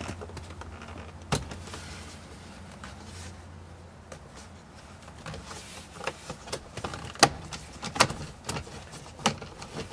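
Plastic dash trim bezel around the ignition of a 1999 Toyota 4Runner being wiggled and pried free: a scattering of sharp clicks and snaps from the trim and its clips, coming more often in the second half.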